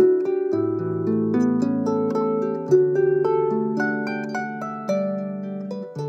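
Background music: a harp plays a gentle melody of plucked notes over low bass notes.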